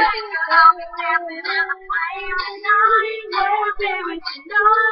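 Young girls singing a pop melody, the held notes wavering slightly in pitch.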